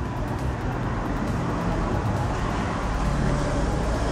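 Kaabo Wolf Warrior 11+ dual-motor electric scooter being ridden: a steady rush of wind and road noise with a faint motor whine.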